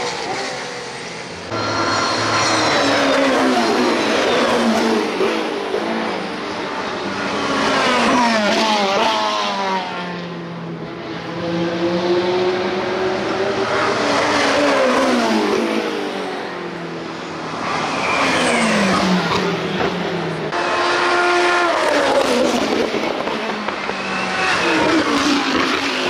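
IMSA sports race cars passing at speed one after another, engine notes sweeping up and falling away as each goes by, the sound swelling and fading several times.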